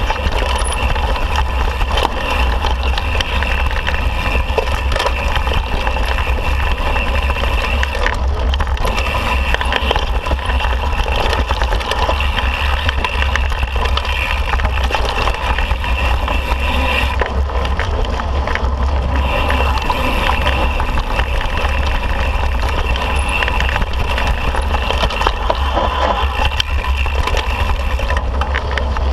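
Mountain bike riding fast down a rocky dirt trail, heard close up from the bike or rider: a heavy wind rumble on the microphone, with tyres crunching and the bike rattling over stones. A faint steady whir runs underneath and drops out briefly about eight and about seventeen seconds in.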